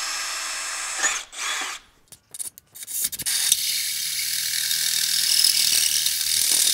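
Cordless drill running a 1/8 inch bit into the aluminum housing of a Honda GX390 engine; its whine winds down and stops about a second in. After a few light clicks, the drill starts again about three seconds in and cuts into the aluminum with a steady grinding chatter.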